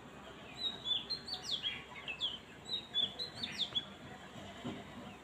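Small birds chirping: a quick run of short, high chirps, each falling in pitch, for about three seconds, thinning out near the end.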